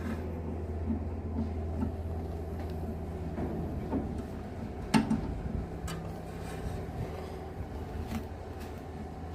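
Scattered light metal clicks and knocks of hand tools working on a car's brake assembly, one sharper knock about halfway through, over a steady low hum.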